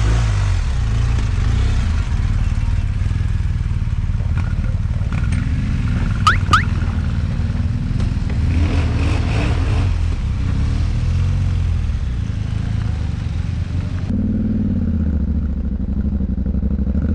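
Yamaha Ténéré 700 World Raid's parallel-twin engine running steadily, with rising and falling revs near the end as the bike pulls away over gravel. Two short, high rising chirps about six seconds in.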